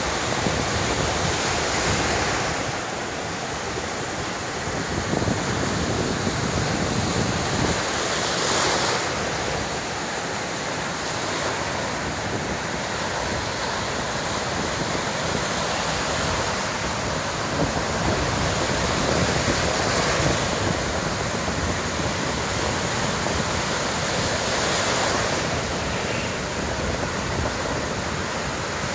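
Heavy sea surf breaking on a beach: a continuous wash of waves with a few louder surges as breakers crash.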